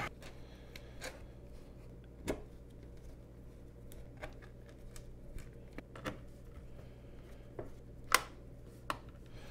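Scattered small clicks and taps of a precision screwdriver and screws against the Toshiba Chromebook 2's bottom cover as the screws are put back in, the sharpest about two seconds in and again near the end, over a faint steady hum.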